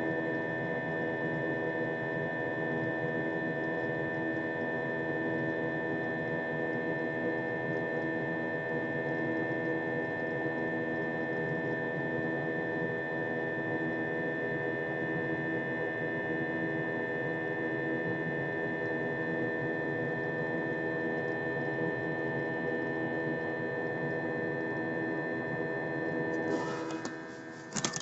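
Jet airliner cabin drone in flight: a steady rush of engine and air noise with several steady humming tones. Near the end the sound shifts and drops, with a sharp knock.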